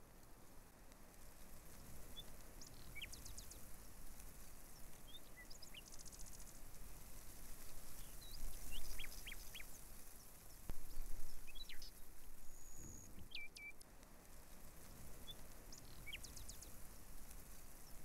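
Small birds calling, with scattered short chirps and whistles, over a steady low background noise. Two louder low rumbles come about 9 and 11 seconds in.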